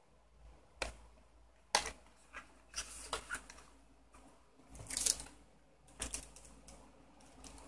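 Scattered small clicks, taps and rustles of small packaging being handled. There is a slightly longer rustle about five seconds in.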